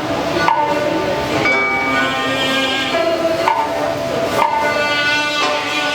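Chinese traditional ensemble playing Cantonese instrumental music: sustained melody notes with some sliding pitches, punctuated by sharp percussion knocks about once a second.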